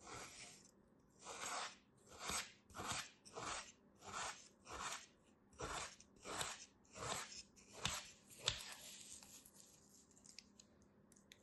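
A knife blade slicing again and again through a packed mound of kinetic sand: about a dozen strokes, roughly one every two-thirds of a second, stopping about nine seconds in.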